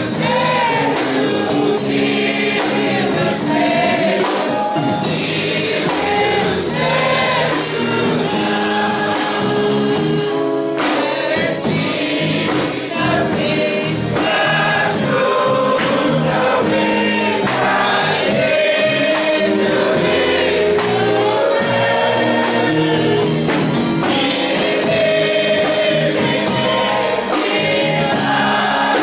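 Church congregation singing a gospel hymn together, many voices carrying a steady sung melody.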